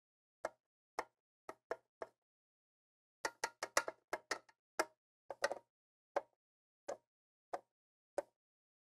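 Sharp clicks and light taps of hands working on the metal motor frame and its screws inside an RV air conditioner: a few scattered clicks, a quick cluster about three seconds in, then single clicks about every two-thirds of a second near the end.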